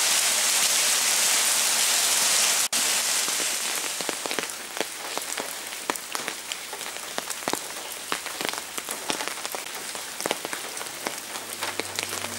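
Rain falling on wet stone cobbles: a dense, steady hiss at first, then, after a brief break about three seconds in, lighter rain with many separate drops ticking and splashing into a shallow puddle.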